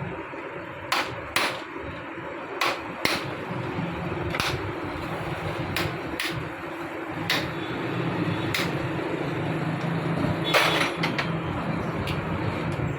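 Hammer blows on a screwdriver to drive a chisel-type nut loose on a motorcycle engine: about a dozen sharp metal strikes, roughly a second apart, with a quick run of three about ten and a half seconds in. A steady hum runs underneath.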